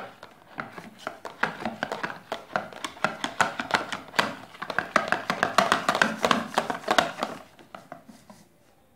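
Wire whisk beating a thin flour batter in a plastic tub: rapid clicking and rattling of the wires against the tub's sides and bottom, dying away near the end.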